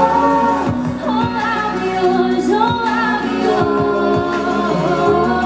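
Live pop song: a woman sings long held notes that bend and glide, over electric guitar and a full band backing.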